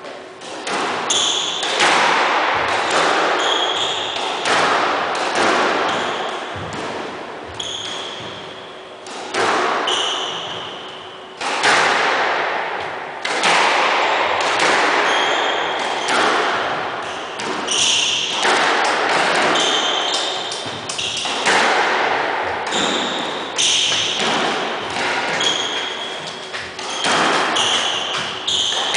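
Squash rally: the ball is struck by the rackets and smacks off the court walls every second or two, each hit echoing in the enclosed court, mixed with short high squeaks of court shoes on the wooden floor.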